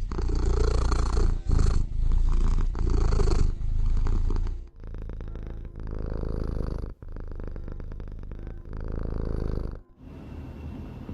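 A cat purring close to the microphone, swelling and fading with each breath. About halfway through it cuts to a second, quieter purr, and near the end to something quieter still.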